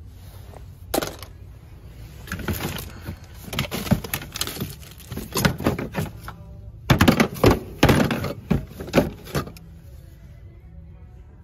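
Hard plastic plumbing fittings and pipe pieces clattering and knocking together as a hand rummages through them in a plastic bin. A single sharp knock comes about a second in, followed by bouts of quick clacks, the loudest about two-thirds of the way through.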